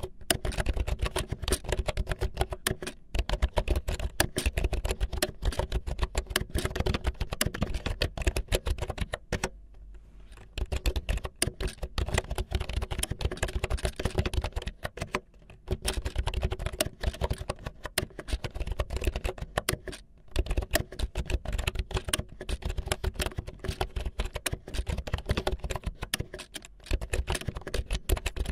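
Fast, irregular clicking and tapping with a few brief pauses.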